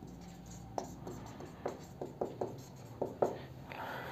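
Marker pen writing on a whiteboard: a run of light taps and short strokes as letters are written, with a brief rustle near the end.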